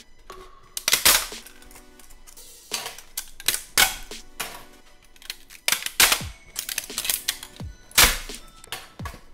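Sharp snaps and cracks of 3D-printed plastic support material being broken off a print by hand, several in irregular succession, over background music.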